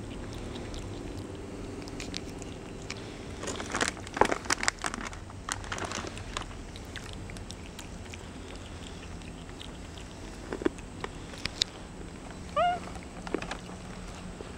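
Capuchin monkey crunching dried trail mix (nuts and freeze-dried fruit) between its teeth, with a cluster of sharp crunches a few seconds in and scattered ones later. A short high chirp with rising pitch sounds once near the end.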